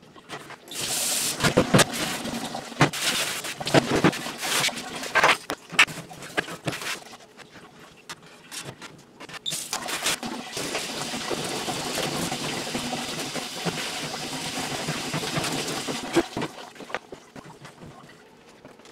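Metal stove parts clattering and scraping against a stainless steel sink as they are scrubbed, with a run of sharp knocks in the first few seconds. About ten seconds in, a steady rush of water from the sink's spray faucet runs for about six seconds, then stops.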